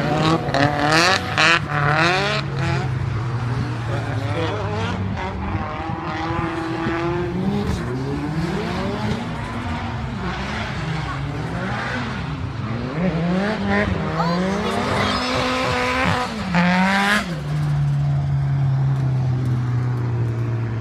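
Drift cars going round the circuit, engines revving up and down repeatedly as the throttle is worked through the corners, over a steady low drone. Tyres squeal loudest about a second in and again near 16 to 17 seconds.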